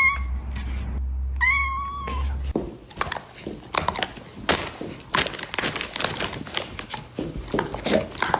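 A cat meowing: one long call, with the tail of another at the very start, followed from about two and a half seconds in by a run of knocks and clatter.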